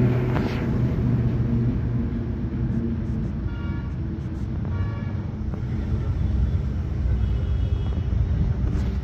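Steady low rumble of a running vehicle engine, with a faint higher-pitched tone sounding briefly twice near the middle.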